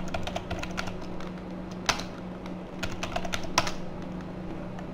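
Typing on a computer keyboard: a run of quick key clicks, with two louder keystrokes about two seconds and three and a half seconds in, the Return key entering each typed command. The typing stops a little before the end.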